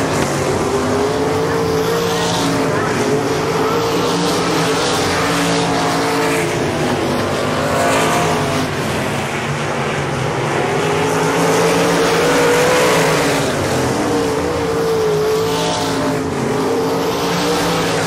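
Several winged sprint cars' V8 engines running hard together around a dirt oval, their pitch rising and falling continuously as the cars accelerate and back off through the laps.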